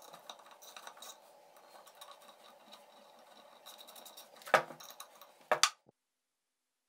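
Small hand ratchet clicking as a bolt is tightened into a steel block on a cast-metal housing, with a few loud sharp metal clinks near the end. The sound then cuts off suddenly.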